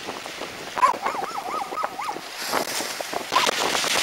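An animal's whining call, wavering up and down in pitch about four times a second for roughly a second and a half, over scattered clicks and knocks and a rising hiss of wind or surf.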